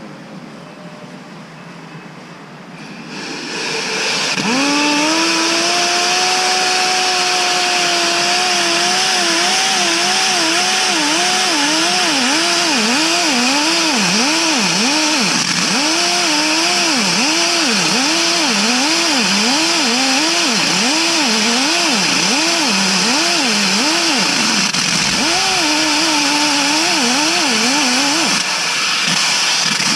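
A small high-revving petrol-engine power tool starts up about four seconds in and runs hard, its pitch dipping and recovering over and over as it is loaded, under a loud hissing noise.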